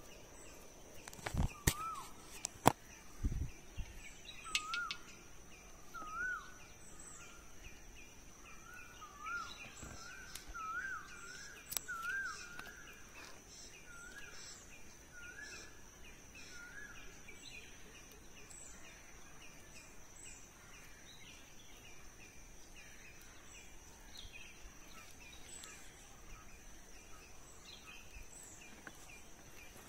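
A bird repeating a short, rising-then-falling whistled call about once a second through the first half, over a steady high insect drone. A few sharp knocks and a dull thud come in the first few seconds.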